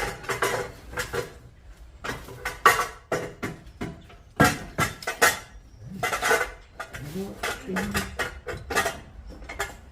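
Metal clanking and rattling in irregular knocks, steel exhaust headers being handled and test-fitted against the engine.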